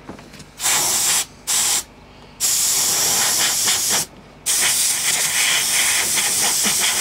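Compressed-air blow gun blasting debris out of a drilled bolt hole: four bursts of hissing air, two short ones, then two long ones of about a second and a half and two and a half seconds.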